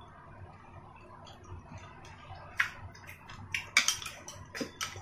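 Chopsticks clicking and scraping against a ceramic dish. The first half holds only faint eating sounds, then about six sharp clicks come over the last two and a half seconds.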